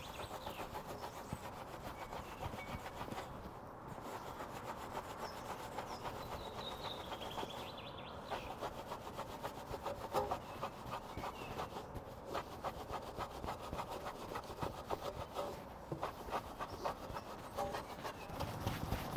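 Foam-covered alloy wheel scrubbed by hand with a soft wash mitt: steady, repeated wet rubbing strokes across the spokes.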